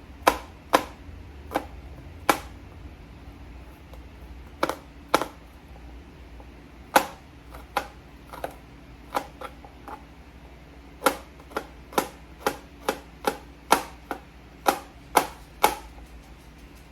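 A kitchen knife slicing garlic cloves thinly, striking the cutting board in irregular sharp taps that come in runs with short pauses.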